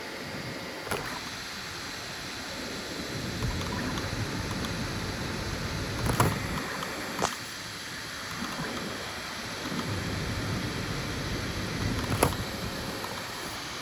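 FDM 3D printer running a print: a steady whir of its fans and stepper motors, with a few sharp clicks.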